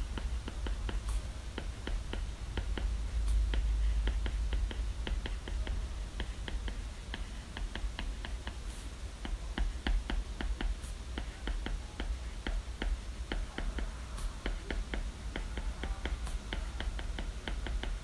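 Stylus tip ticking on an iPad's glass screen during handwriting: a quick, irregular run of light clicks, about four or five a second, over a steady low rumble.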